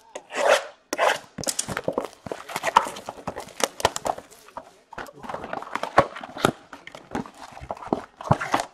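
Hockey card blaster box and its card-pack wrappers being torn open and handled: a dense, irregular run of crackling, ripping and rustling.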